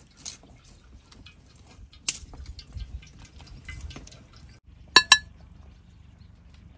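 Cooking oil poured in a thin stream into a wok, trickling and splashing softly. About five seconds in come two quick ringing clinks of a spoon against tableware.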